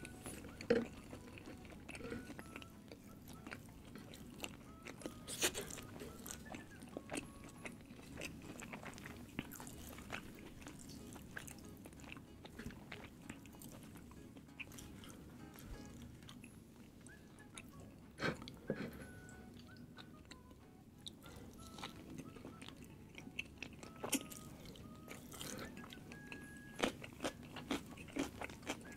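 A person chewing and biting food close to the microphone, with many short, irregular mouth clicks and smacks.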